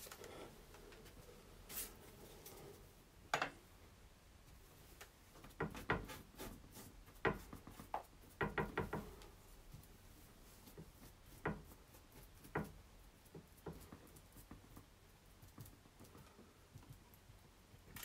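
A paintbrush dabbing and scrubbing paint onto a canvas on an easel: faint, irregular taps and knocks with quiet stretches between them.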